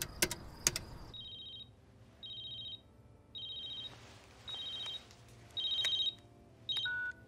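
A few clicks of payphone keypad buttons being pressed, then a telephone ringing: six short, high electronic rings about a second apart, getting louder, the last one cut short near the end.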